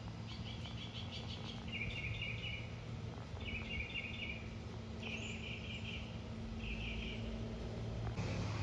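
A songbird repeats a short chirping phrase about five times, roughly every one and a half seconds. Under it a distant small propeller plane drones steadily and grows louder near the end.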